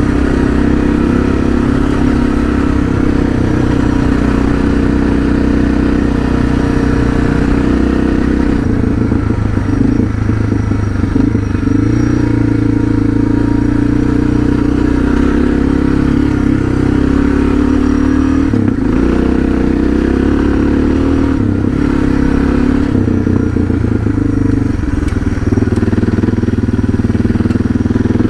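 Suzuki DR650's single-cylinder four-stroke engine running steadily under way. Its note changes about a third of the way in and again around two-thirds through.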